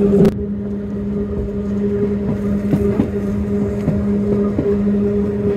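Electric narrow-gauge train running, heard from inside a carriage: a steady low motor hum over a rolling rumble, with a few irregular clicks and knocks from the wheels and track. A louder rushing noise cuts off abruptly just after the start.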